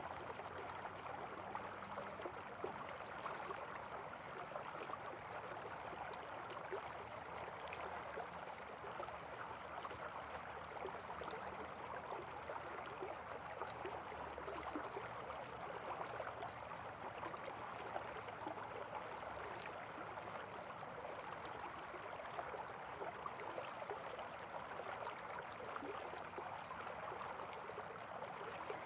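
Steady rush of flowing water, like a stream running.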